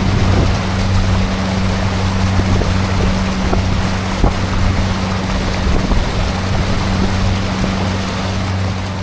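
Small boat's outboard motor running at a steady pitch under way, over a rushing of water and wind.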